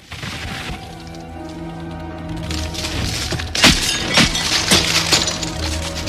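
Film effects mix of a frozen body cracking apart as it moves: a run of sharp, icy cracks and crunches over sustained music, the loudest a little past halfway and then about every half second. The cracks are built from a metal ice cube tray being twisted and footsteps on frozen snow.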